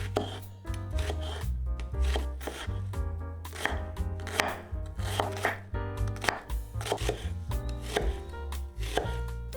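A knife chopping food on a cutting board in uneven strokes, over background music with a steady bass line.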